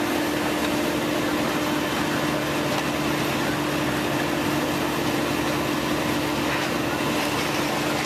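Heavy diesel machinery running steadily: the Liebherr R944C excavator and the fire apparatus working together. It is a constant drone holding one even pitch, with a wide hiss over it and no pauses.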